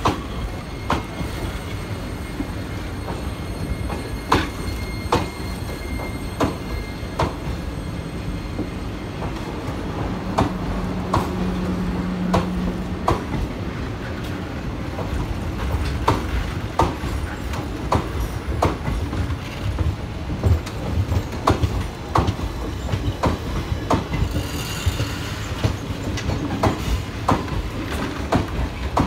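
Indian Railways passenger coaches rolling past at low speed. Their wheels clack over rail joints in an irregular string of sharp clicks over a steady low rumble. A short low hum sounds about ten seconds in.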